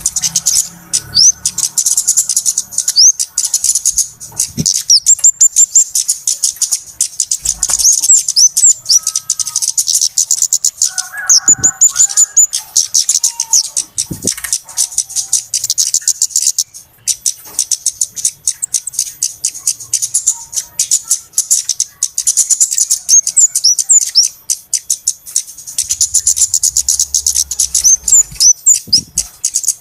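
Flowerpeckers (cabe-cabean, kemade) calling without pause: many rapid, very high-pitched chirps and short quick notes overlapping into a busy chorus. A few soft knocks come through now and then.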